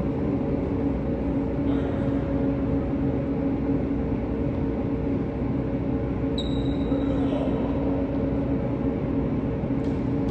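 Steady hum of the ventilation in a large indoor tennis hall, with a few steady tones in it. Faint tennis balls being struck about two seconds in and near the end, and a brief high squeak a little past the middle.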